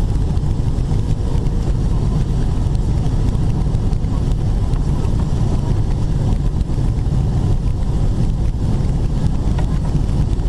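Steady low cabin rumble of a Boeing 777-300ER on final approach, engine and airflow noise heard from a window seat over the wing, with no changes or sudden events.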